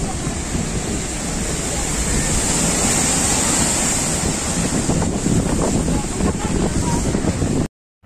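Heavy storm surf from a rough sea surge breaking and rushing over a rock seawall in a continuous loud roar, with wind rumbling on the microphone. The roar cuts off abruptly near the end.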